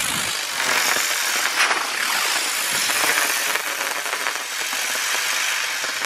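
Crackling-star effect of an Xplode Crackling Bird firework: a dense, steady crackle of countless tiny rapid pops.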